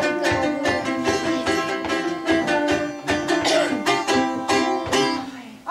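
Instrumental music on a plucked string instrument, played with quick repeated strokes, dying away near the end.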